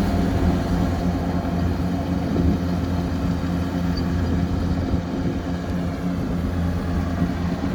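Diesel engine of a rice combine harvester running steadily, a low even drone.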